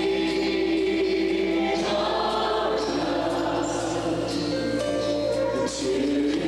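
Church choir singing with organ accompaniment, in long held chords that move to new notes every second or two.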